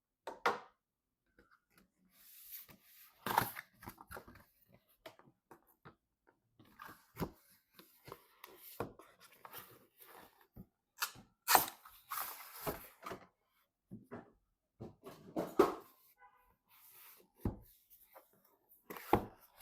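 Hands handling PC components and their packaging: irregular rustling and scraping broken by sharp clicks and light knocks, with a duller thud near the end.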